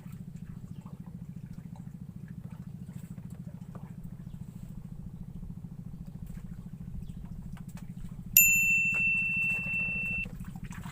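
A small engine running steadily with a fast, even low throb. About eight seconds in, a loud, sudden high-pitched electronic beep cuts in and holds for about two seconds.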